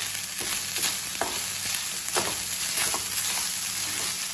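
Garlic fried rice sizzling in a nonstick frying pan while a spatula stirs and scrapes it, with a steady hiss and short irregular scrapes and taps of the spatula against the pan.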